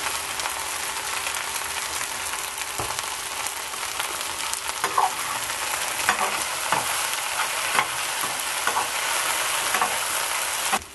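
Sliced mountain yam and onion frying in canola oil in a skillet, sizzling steadily. About halfway in a spatula starts stirring and scraping through the food in the pan.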